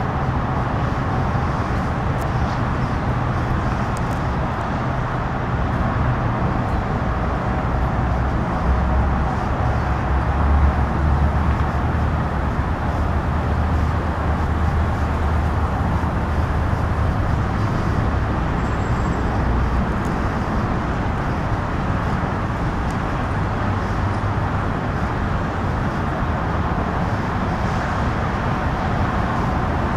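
Steady freeway traffic noise, with a low diesel drone from a Metrolink train running on the tracks below the overpasses.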